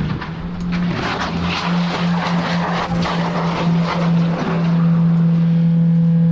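Car crash: a hard impact, then the overturned car sliding on its roof, its metal scraping along the road surface for several seconds. A steady low tone holds underneath from just after the impact.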